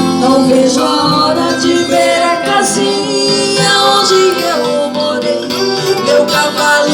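Music: a song with guitar accompaniment and singing.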